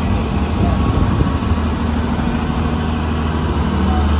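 Six-cylinder diesel engine of a New Holland combine harvester running steadily with a low, even hum as the machine creeps up steel ramps.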